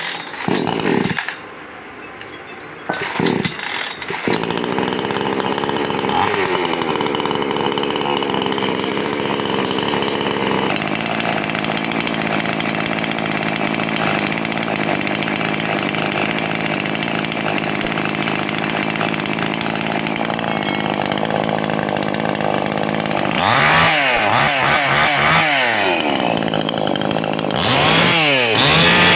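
Zomax 5800 two-stroke chainsaw engine, fresh from having its carburettor and silencer fitted. It catches about four seconds in and idles steadily, then is revved up and down several times over the last few seconds.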